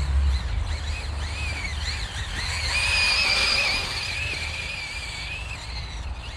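Losi 8ight-E RC buggy's stock 2650kV brushless electric motor whining, its pitch rising and falling with the throttle, then held high and steady for a few seconds before easing off near the end. A low rumble dies away in the first half second.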